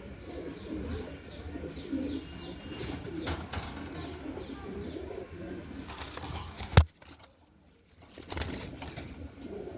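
Domestic fancy pigeons cooing over and over, a low bubbling murmur of overlapping coos. About seven seconds in there is one sharp, loud knock, and the sound drops out for about a second before the cooing resumes.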